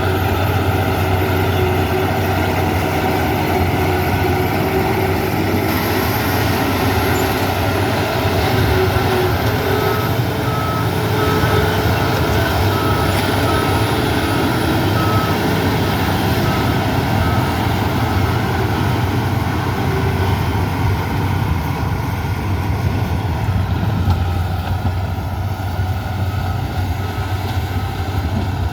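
Heavy construction machine's diesel engine running steadily with a deep hum. In the middle a reversing alarm sounds a row of short, evenly spaced beeps, about one a second.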